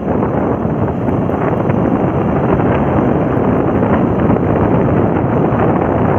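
Steady wind buffeting on the microphone of a phone on a motorcycle riding at speed, mixed with the bike's running and road noise.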